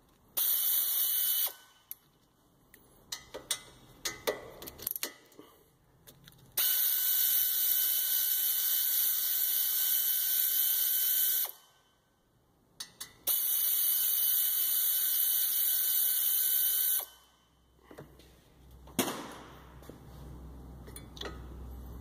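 Pneumatic air ratchet with a 7 mm hex bit running to unscrew the brake caliper bolts. A brief burst comes right at the start, then two longer runs of about five and four seconds. Scattered clicks of the tool and bolts come in between.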